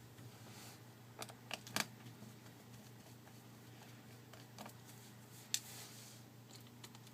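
Faint, scattered light clicks and ticks of a small Phillips screwdriver and tiny screws against a smartphone's plastic frame, a cluster of three about a second in and two more later, over a steady low hum.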